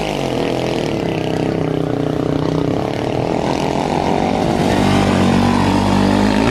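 Rally motorcycle's single-cylinder engine running hard on a dirt track as the bike approaches and passes. Its pitch and loudness rise over the last couple of seconds.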